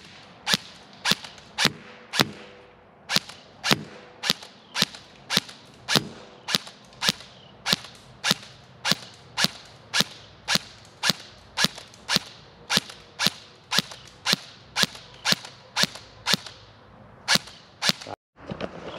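Gameface Ripcord M4 electric airsoft rifle fired shot by shot in semi-auto: about thirty sharp cracks at roughly two a second, with a short pause about two seconds in.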